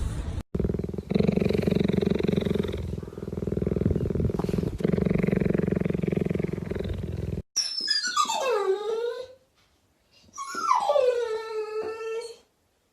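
A dog growling in a long, steady, low rumble, then two whining cries that each slide down in pitch and level off.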